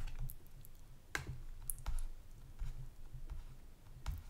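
A few sharp computer mouse clicks, scattered about a second or more apart, over a faint low hum.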